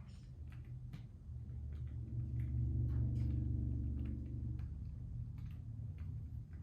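Small clicks of plastic parts being handled and fitted back together on a toy train, with a low hum that swells for a couple of seconds in the middle.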